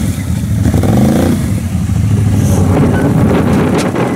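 Can-Am quad bike engines running and revving through mud, the pitch rising and falling as the throttle is worked.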